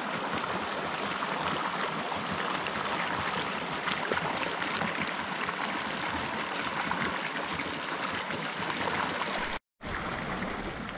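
Oak Creek's running water rushing steadily over rocks. Near the end the sound cuts out completely for a split second, then the rush resumes a little quieter.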